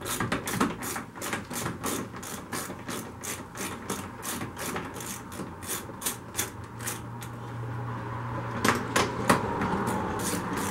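Ratchet wrench with a 10 mm socket clicking in a steady rhythm, about three clicks a second, as it backs out a bolt holding the plastic radiator shroud. A few louder clicks come near the end.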